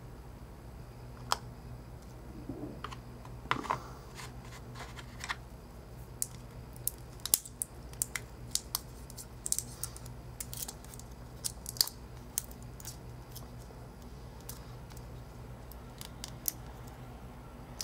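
Scattered small clicks and taps of hand tools and small parts being handled during iPhone 4 reassembly, over a steady low hum.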